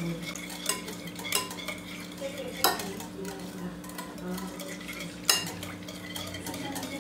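Wire balloon whisk stirring a thin mixture of milk, sugar and yeast in a glass bowl, with a few sharp clinks as the whisk hits the glass.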